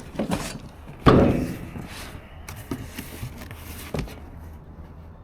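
A few separate knocks and clunks of hard objects being handled, with one loud bang about a second in that rings briefly, then lighter knocks.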